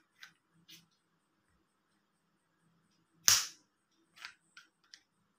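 Plastic selfie stick / phone stand being handled and its phone-holder head adjusted: a couple of light plastic clicks, one loud sharp snap about three seconds in, then three more quick clicks.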